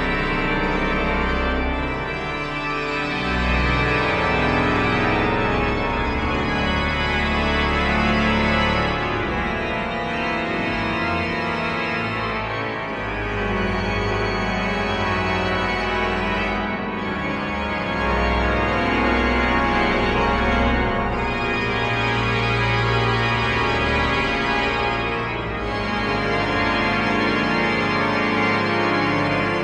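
Pipe organ playing dense, sustained clusters of many held notes over a deep bass, the chords shifting every few seconds with brief lightenings of the upper register.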